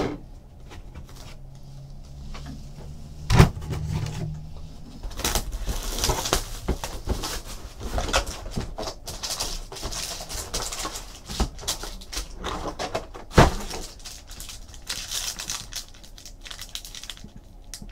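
Trading card packs and boxes being handled and opened: wrappers crinkling and tearing and cards being shuffled, with many small clicks. Two sharp knocks stand out, about three seconds in and again about thirteen seconds in.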